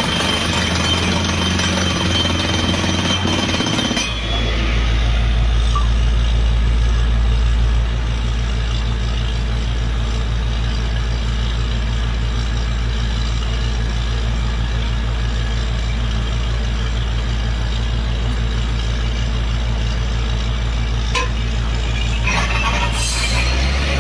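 Diesel engine of a truck-mounted water well drilling rig running steadily, a low drone with a fast even pulse. The sound changes abruptly about four seconds in, and a brighter clatter joins near the end.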